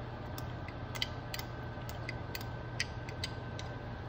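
Light, scattered clicks and taps of a plastic spoon against a glass jar as thick garlic-ginger paste is scooped out, over a steady low hum.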